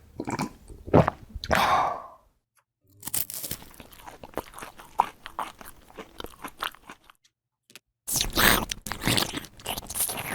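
Crunchy chewing and biting, in three stretches of dense crackling separated by short pauses: an eating sound as food is bitten into.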